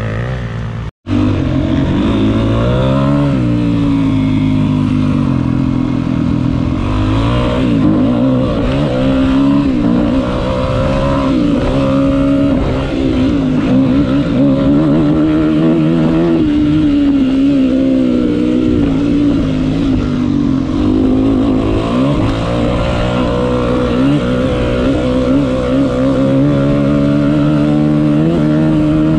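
Yamaha dirt bike engine running under constantly changing throttle while being ridden, heard from on the bike, the pitch rising and falling with the revs. There is a brief dropout about a second in.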